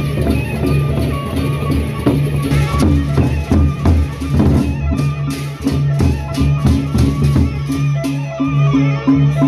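Gendang beleq ensemble playing: the large Sasak barrel drums are beaten by hand and stick, with hand cymbals clashing and a repeating pattern of low pitched notes underneath in a steady, driving rhythm.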